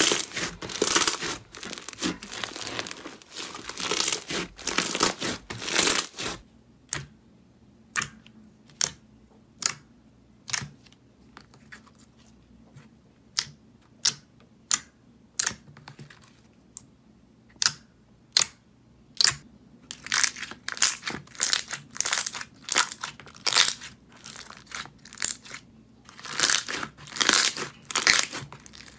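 Slime being squished and stretched: dense crinkly crackling, then a long run of separate sharp pops about one or two a second, then dense crackling again near the end.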